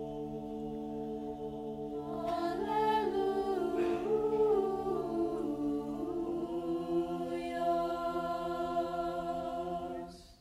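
Youth choir singing a held chord, with the upper voices moving over it in the middle. The harmony shifts to a final chord that is held and then released together just before the end.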